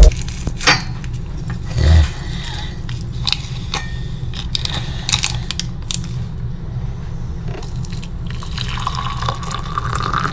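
Paper sachets rustled and torn open over a mug, with scattered small clicks and taps as a hot drink is made and a spoon is worked in the cup. A steady low hum runs underneath.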